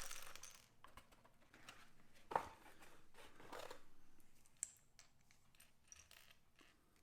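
Faint handling of small plastic building-set packaging: a sharp click a little over two seconds in, a short rustle after it, and a few light clicks and ticks.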